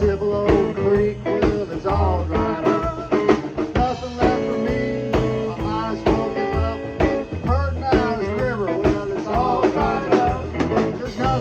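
A blues band playing an instrumental passage of the song, with steady drum strokes and sustained bass and chords under a lead line of bending notes.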